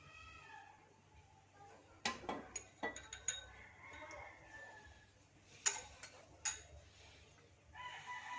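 A spoon stirring honey into the oregano and lemon remedy, clinking against the side of the cup: a run of sharp, ringing clinks a couple of seconds in, then two more a few seconds later.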